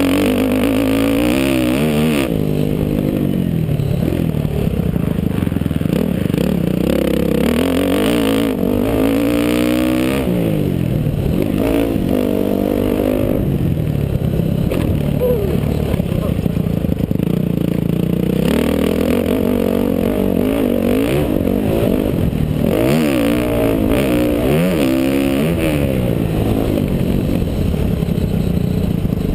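A motocross dirt bike engine, heard from the rider's helmet camera, revving up and falling back again and again as the throttle opens and closes.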